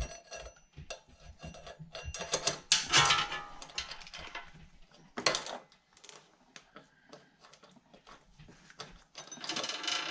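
Irregular metallic clinks and rattles of a roller chain being handled and worked to length, with louder clusters of clatter about three, five and nine and a half seconds in.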